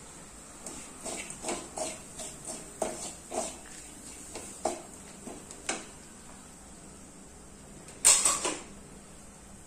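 Wooden spatula scraping and knocking against an aluminium kadai while stirring fried onions and spices: a string of short scrapes and taps over the first six seconds, then a louder clatter of knocks about eight seconds in.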